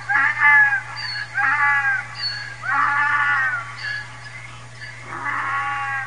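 An animal calling: four high-pitched calls about a second apart, each under a second long, the pitch arching over and falling away at the end.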